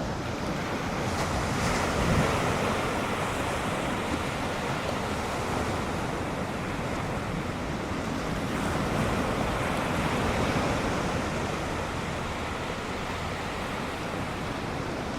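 Ocean surf: waves breaking and washing in as a steady rush, swelling louder about two seconds in and again around ten seconds.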